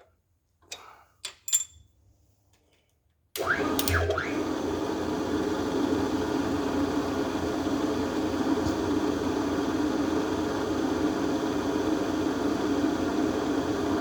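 A few light clicks, then about three seconds in a drill starts with a brief rising whine and runs steadily, drilling out a water pump bolt hole in a 350 Chevrolet block.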